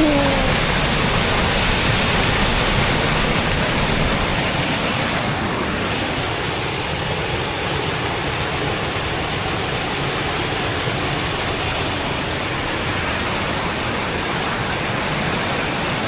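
Minneopa Falls pouring steadily: the constant rush of falling water, a little louder in the first few seconds.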